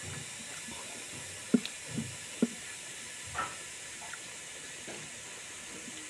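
Close-up chewing and mouth sounds of someone eating duck fry and rice: a few short, sharp wet smacks and clicks, the loudest about a second and a half in, over a steady hiss.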